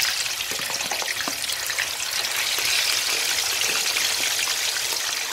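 Pieces of snake deep-frying in hot oil: a steady sizzle with scattered pops.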